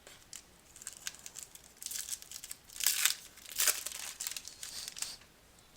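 A 2014 Panini Prizm football card pack's wrapper being torn open and crinkled by hand: a run of crackling rips, loudest about three seconds in.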